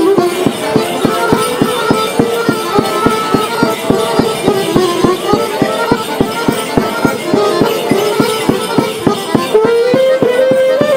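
Traditional Romanian folk dance music for a hora circle dance: a single ornamented melody over a steady, fast beat of about four to five strokes a second.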